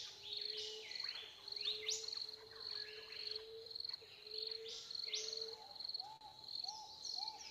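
Nature ambience of crickets chirping in a steady high pulse, with repeated falling calls from other animals over it. About five and a half seconds in, a regular run of short lower calls starts, about two a second.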